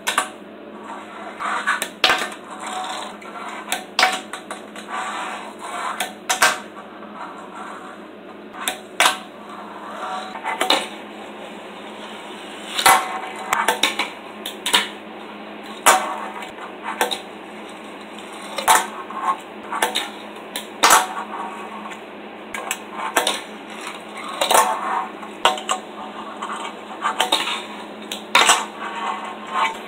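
Fingerboard with Prodigy trucks being pushed and flipped by fingers on a tabletop: rough rolling of the small wheels broken by sharp clacks as the tail pops and the board lands, irregularly about every second, over a steady low hum.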